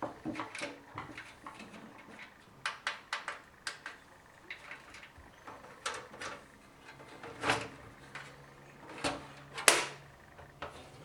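A PC case and its parts being handled: irregular clicks, taps and knocks, with one sharper knock near the end.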